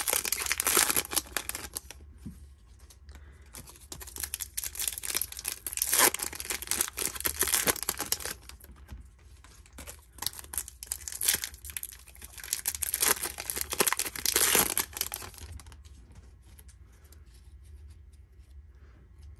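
Foil wrappers of 2021 Topps Chrome baseball hobby packs being torn open and crinkled by hand, in several bursts of crackling and rustling over about fifteen seconds.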